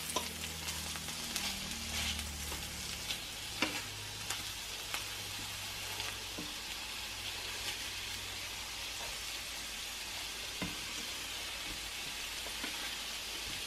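Ground-beef patties sizzling steadily as they sear in a frying pan over moderate heat, with a few sharp taps and scrapes of a spatula against the pan as they are flipped.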